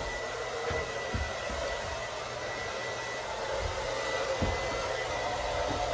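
Handheld hair dryer blowing steadily, a constant airy hiss with a thin high whine, with a few dull low thumps here and there.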